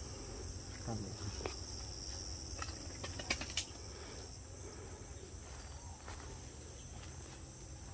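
Steady high-pitched chirring of insects, with two sharp clicks close together a little over three seconds in.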